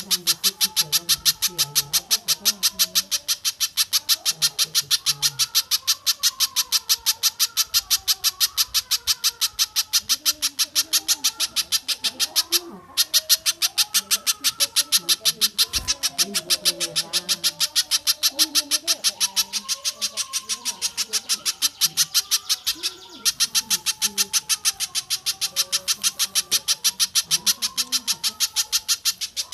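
Masteran bird-song recording of pijantung (spiderhunter) and tengkek buto song: a rapid, even run of high, sharp chips, about five a second, broken twice by brief pauses.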